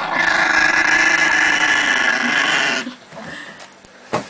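Chihuahua growling continuously for nearly three seconds, then falling quiet: a food-guarding warning growl over a plate of pancakes. A short knock near the end.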